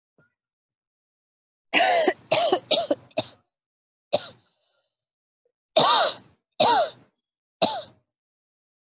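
A woman coughing into her hand in a fit of about eight coughs: a quick run of four, a single cough, then three more near the end.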